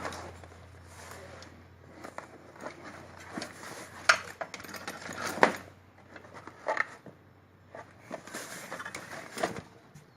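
Irregular clicks, knocks and rustling from handling an Olivetti Lettera 35i portable typewriter and its soft case. The loudest knocks come about four and five and a half seconds in.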